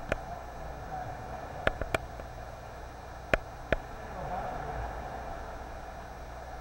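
Sea water sloshing and lapping around a kayak inside a sea cave, a steady wash of noise. Five sharp clicks cut through it: one at the start, then two pairs, about two and three and a half seconds in.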